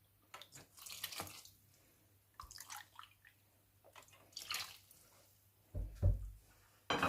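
Fresh milk being poured into a mixing bowl, splashing and dripping in several short bursts, followed by a few dull low thumps near the end.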